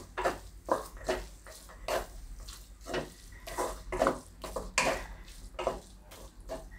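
Metal spatula stirring and scraping a thick mass of grated fresh turmeric in a pan, in short strokes about two a second.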